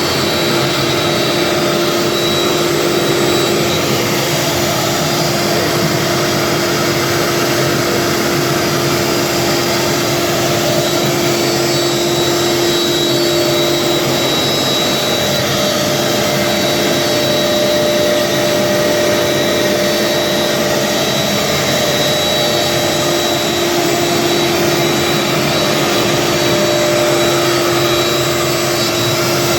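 CNC router spindle milling MDF cabinet door fronts: a steady machine whine over continuous cutting noise.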